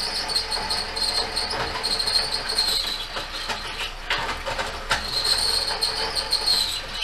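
Vertical band saw cutting a block of aluminium, the blade giving a steady high whine in the metal. The whine eases off about three seconds in and picks up again about two seconds later.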